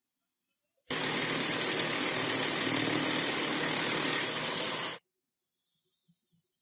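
A steady hiss, starting sharply about a second in and cutting off abruptly after about four seconds.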